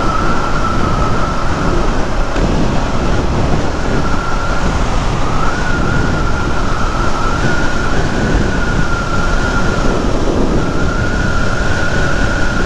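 Motorcycle riding noise: wind rushing over the helmet microphone with the visor open, mixed with the running engine and tyres. A steady high whistle runs over it and drops out briefly a couple of times.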